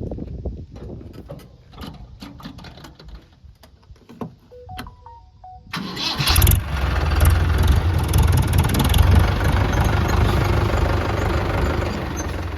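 Scattered clicks and a few short beeps, then about six seconds in a heavy engine starts up abruptly and runs loudly and steadily with a deep rumble.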